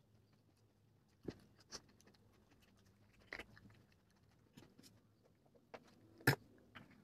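A few sharp clicks and crackles of a plastic water bottle being picked up and drunk from, over soft chewing. The loudest crackle comes about six seconds in.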